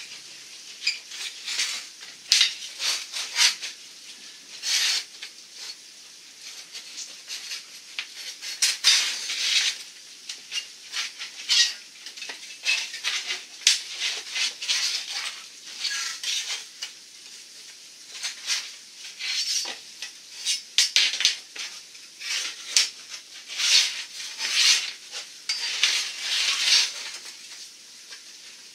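Soft copper tubing being bent by hand around a round coil template: irregular metallic scrapes, creaks and clinks as the tube rubs and knocks against the form.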